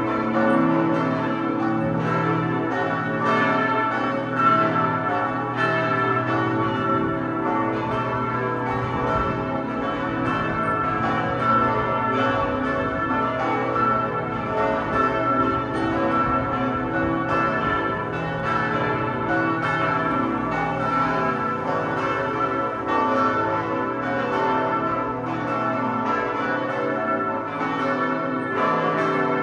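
Partial peal of five Pfundner church bells from 1961, tuned a0, h0, c-sharp′, e′ and a′, the largest weighing 3116 kg, ringing together in a steady, dense, overlapping clang of strokes.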